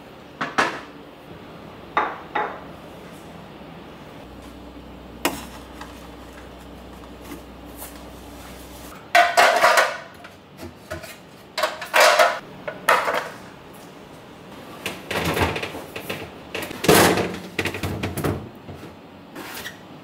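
Clear plastic refrigerator door bins being lifted out and handled: a few light knocks, then several louder spells of plastic rattling and clattering against plastic in the second half.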